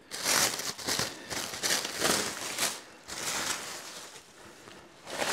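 Clear plastic stretch wrap being pulled and torn off an electric unicycle, crinkling and rustling in irregular bursts.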